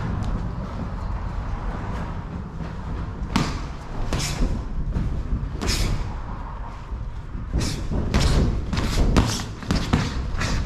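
Boxing sparring: gloved punches landing on gloves and headgear as scattered sharp thuds, coming more often from about eight seconds in, over a steady low rumble.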